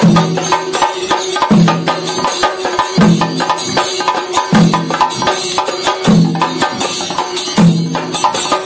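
Chenda drums beaten with sticks in a fast, dense rhythm, with a heavier low beat recurring about every one and a half seconds.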